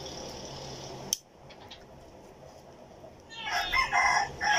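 A rooster crowing once, starting about three seconds in and lasting about a second and a half; it is the loudest sound here. Earlier, a sharp click about a second in, after which the background hiss drops.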